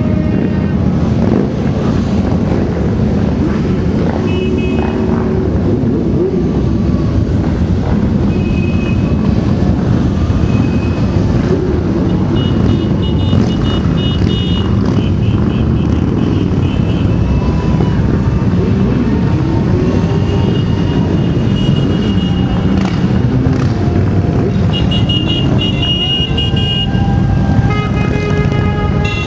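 A long procession of motorcycles, mostly cruisers and touring bikes, riding past in a steady stream, their engines making a continuous low rumble with occasional revs rising and falling.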